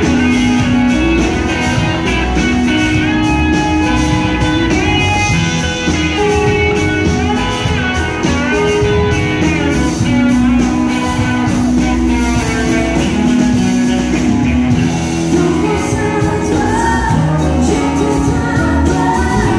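Live country-rock band playing electric guitars, acoustic guitar and drums, with singing near the end.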